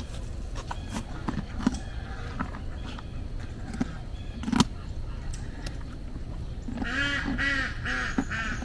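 A few sharp clicks and crunches, then near the end a quick run of about five pitched animal calls, each rising and falling.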